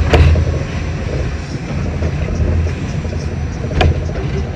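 R68 subway car in motion, heard from inside: a steady low rumble of wheels and running gear on the track, with a sharp clack just after the start and another near the end.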